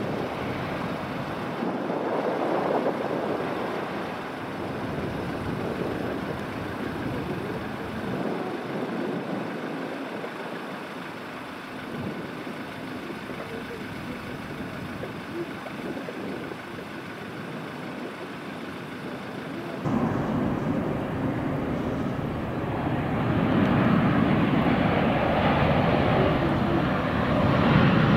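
Airliner jet engine noise: an American Eagle CRJ regional jet's rear-mounted GE CF34 turbofans running steadily on final approach and through touchdown. About 20 seconds in, a cut brings in a louder American Airlines Boeing 737-800 on approach, its engines growing louder as it comes closer.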